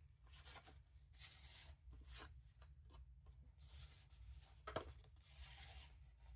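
Faint rustling of paper tags and journal cards being handled and slid into a paper pocket, with a light tap a little under five seconds in.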